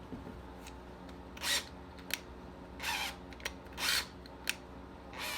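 Tools and parts being handled on a workbench: three short scraping, rustling sounds and a few sharp clicks over a steady low hum.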